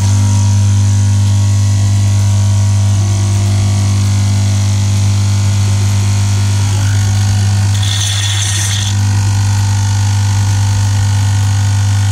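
Lavazza A Modo Mio capsule espresso machine's vibratory water pump buzzing steadily while it runs a brew cycle, with a brief hiss about eight seconds in. This is the machine pushing water through the capsule after its non-return valve and pressure valve were repaired.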